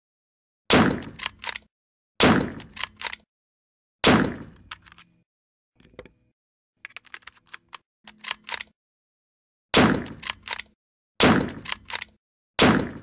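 Sauer 404 bolt-action rifle fired rapidly: six shots in two strings of three, about a second and a half apart, each followed by the metallic clack of the bolt being worked. Between the two strings there is a few-second run of quieter metallic clicks from handling the rifle.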